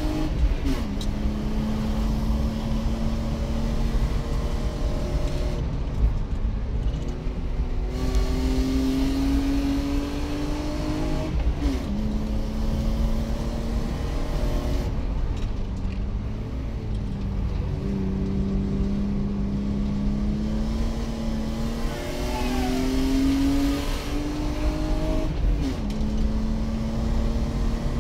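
BMW E36 320i's 2.0-litre 24-valve straight-six, heard from inside the car at racing speed. It pulls up through the revs, its note climbing steadily, then drops sharply at each gear change, several times, over a steady rumble of tyre and road noise.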